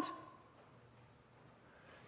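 A pause in a man's speech: his last word fades out within the first quarter second, leaving quiet room tone.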